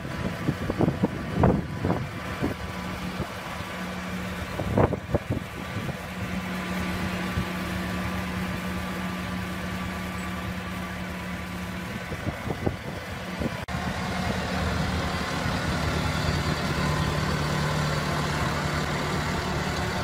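Tractor engine running steadily with a low, even hum while towing a spiked-wheel rotary weeder, with a few sharp thumps in the first five seconds.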